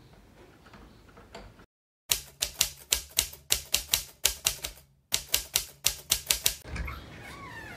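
Typewriter keystrokes, a quick run of sharp clacks about four a second, typing out on-screen text. They start after a moment of dead silence about two seconds in and pause briefly partway through, as at a line break.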